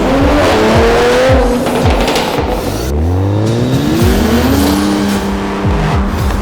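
Toyota Supra A90's turbocharged 3.0-litre inline-six breathing through an ARK DT-S exhaust with a catless downpipe, accelerating with its pitch climbing, twice.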